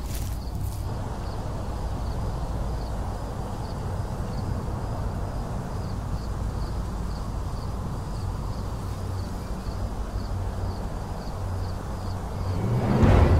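Night-time outdoor ambience: a steady low rumble, with a single insect chirping high and faint in an even, regular rhythm. Near the end a louder rushing swell rises.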